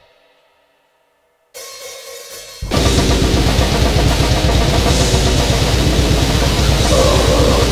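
A grind/noisecore band's raw rehearsal recording. A ringing tail fades to near silence and, after a short lull, the full band comes in at once about three seconds in: a dense, loud wall of distorted instruments with drums and cymbals.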